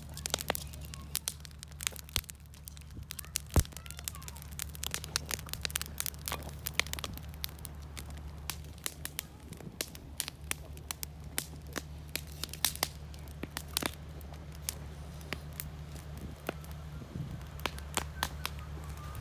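Wood campfire of split kindling crackling, with sharp irregular pops throughout and one loud pop a few seconds in, over a steady low hum.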